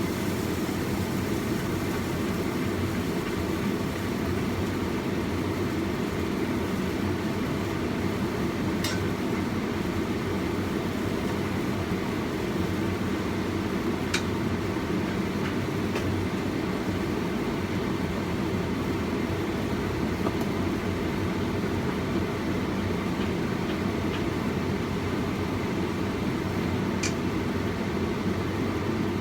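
Steady low rushing hum of a gas stove burning on a low flame under a covered, braising pot, with a few faint ticks.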